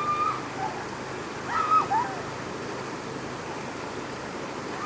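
Puppies whimpering: short, high-pitched cries that fall in pitch. One comes at the start, two together about a second and a half in, and one more at the very end, all over a steady background hiss.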